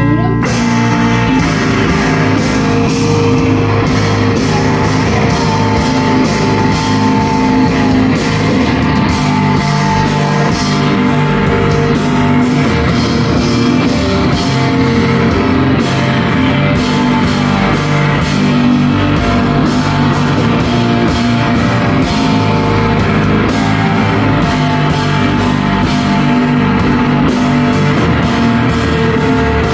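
A rock band playing loud and live: distorted electric guitars through amplifiers and a drum kit playing steadily throughout.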